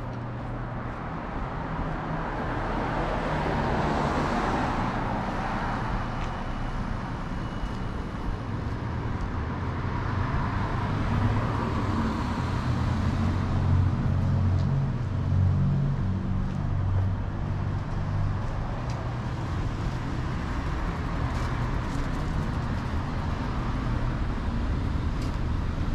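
City street traffic: cars driving past one after another over a steady low engine rumble.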